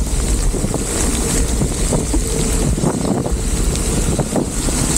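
Wind on the microphone and the steady hiss of heavy rain and a wet road while cycling through a downpour.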